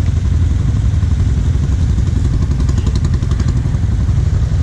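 ATV engine idling steadily with a loud low rumble, heard close up from on the machine.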